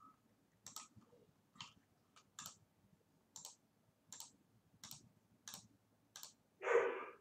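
Computer mouse button clicked about eight times at an even pace, roughly one click every three-quarters of a second. A brief louder sound comes near the end.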